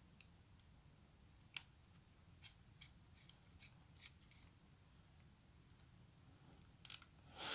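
Near silence with a few faint, short metallic clicks as an antenna's SMA connector is threaded onto the antenna jack of FPV goggles. A low, steady hum lies underneath.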